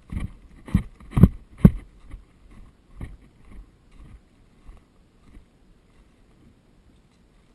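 A series of thumps: four loud ones in the first two seconds, then fainter ones about every half second that die away.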